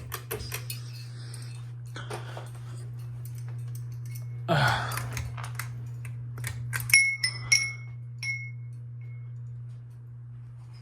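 Steady low hum under a run of light clicks at the start. About four and a half seconds in there is a brief rushing scuff, the loudest sound here. Around seven to eight seconds in come several sharp clinks of metal or glass, each ringing briefly.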